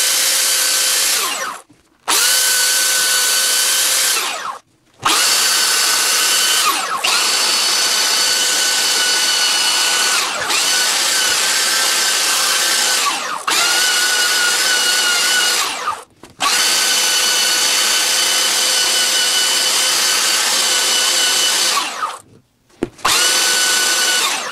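Handheld belt sander running in several long bursts, stopping and restarting about four times, as it grinds down motorcycle seat foam. Its steady whine dips briefly in pitch a few times.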